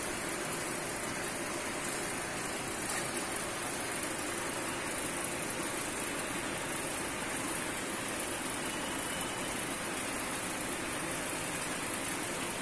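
Centrifugal pump and its electric motor running steadily under load, pumping water: a steady, even noise.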